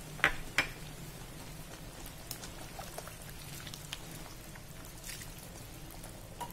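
Metal ladle stirring cassava leaves through thick coconut-milk curry in an aluminium wok, with liquid sloshing. Two sharp clinks of the ladle against the pan come in the first second, then a few softer taps.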